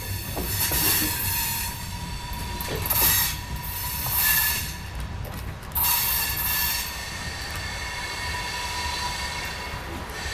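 A train's railcars rolling past with steel wheels squealing on the rail. High-pitched squeals come and go over a steady low rumble.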